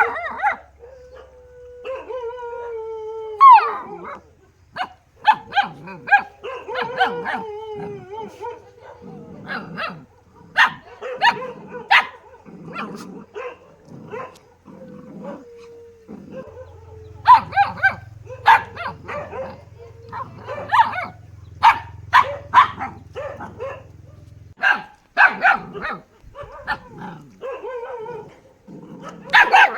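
Dog barking over and over in short, sharp barks. A long, drawn-out howling cry comes in the first few seconds.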